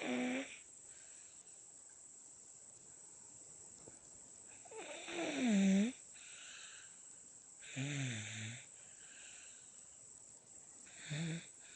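A seven-month-old baby girl snoring in her sleep: four snores about three seconds apart, the loudest about five seconds in. An ordinary level of snoring for her, not especially loud.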